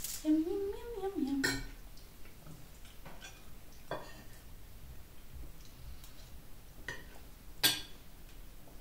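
Cutlery clinking and scraping on dinner plates during a meal: a few separate sharp clinks, the loudest near the end. A woman's voice is heard briefly in the first second and a half.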